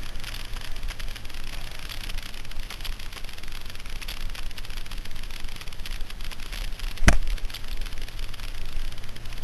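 Honda NPS50 Zoomer scooter riding over a gravel road: steady wind noise on the microphone and gravel rattling under the tyres, over the low hum of its small single-cylinder engine. A loud knock about seven seconds in.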